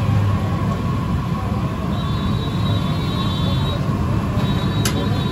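Jalebis frying in a wide kadai of hot oil: a steady rumbling sizzle, with one short clink near the end.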